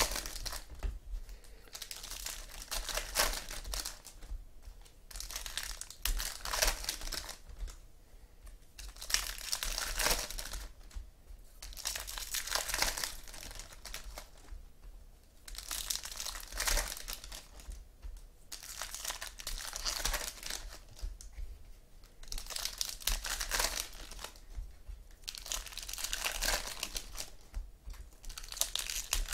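Foil Topps Platinum football card packs being torn open and their wrappers crinkled, one after another: crackling bursts every few seconds.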